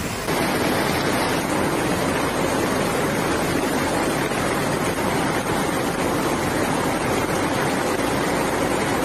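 Fast-flowing floodwater rushing and churning through a street: a loud, steady rushing noise.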